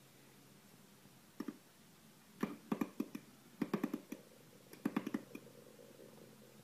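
Light clicking taps in several quick runs: a pair of taps, then three bursts of rapid clicks.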